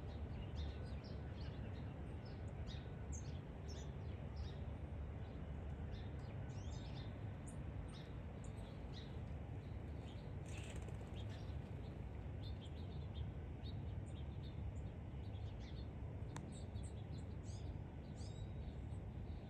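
Small songbirds chirping and twittering, many short high calls throughout, over a steady low background rumble.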